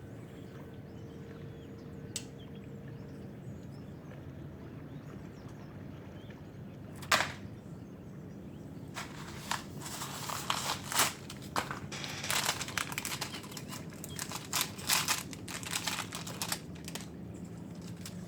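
Small hard parts being handled on a workbench: a sharp click about seven seconds in, then a long run of irregular crinkly clicks and scrapes, over a steady low hum.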